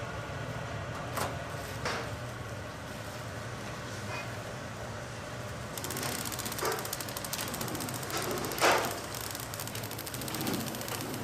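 Bakery production machinery running with a steady hum; a fast, fine mechanical ticking joins about halfway through. A few sharp knocks sound over it, the loudest about three-quarters of the way in.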